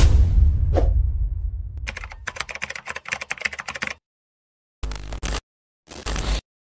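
Logo-intro sound effects: a deep low boom that dies away over about two seconds, then a rapid run of computer-keyboard typing clicks for about two seconds, then, after a short gap, two brief noisy bursts near the end.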